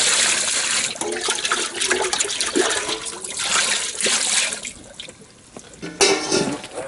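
Salt brine poured over gutted carp: a steady gush at first, breaking into uneven splashes and trickles that die down about five seconds in, then a fresh surge near the end.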